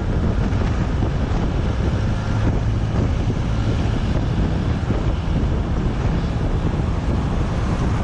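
Steady wind buffeting the microphone of a camera on a moving car, over a constant low rumble of road noise.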